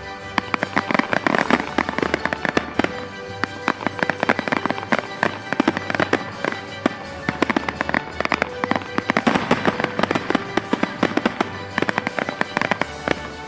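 Fireworks crackling and popping in a dense run of sharp, irregular cracks, over background music.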